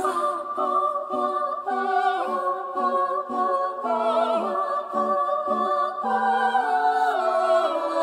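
Layered voices singing wordless held chords a cappella, stepping from note to note with touches of vibrato, with no bass or drums.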